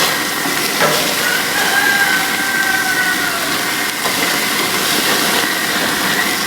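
Pork chops sizzling on a grill, a steady loud hiss of fat and juices hitting the fire. A rooster crows faintly in the background for about two seconds, starting about a second in.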